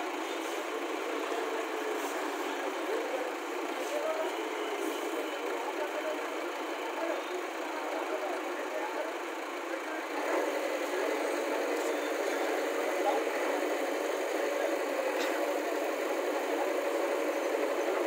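JCB backhoe loader's diesel engine running steadily near idle; its note grows a little louder and steadier about ten seconds in.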